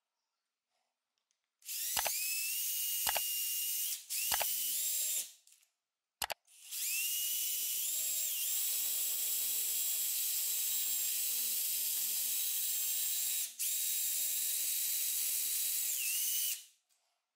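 Small electric rotary tool running at high speed with a high whine that rises in pitch as it spins up. It runs in several stretches separated by short stops, the longest about seven seconds, with a few sharp clicks in the first stretches, and winds down near the end.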